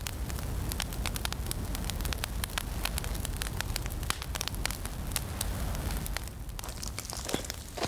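Wood campfire crackling and popping in a metal fire pit, irregular sharp snaps over a steady low rumble.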